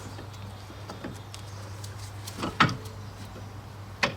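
Brake pad being worked into a large brake caliper: a few light metallic clicks and knocks, with one sharp click about two and a half seconds in and another near the end, over a steady low hum.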